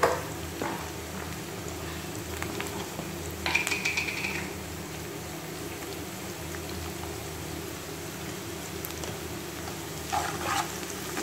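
Diced onions and green chillies sizzling in oil in a frying pan, with a few scrapes of a wooden spatula against the pan. A louder squeaky scrape about three and a half seconds in, and more scraping near the end.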